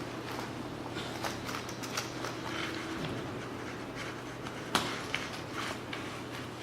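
Light handling of a snap button punch tool and boat canvas: soft rustles and small clicks, with one sharper click about five seconds in.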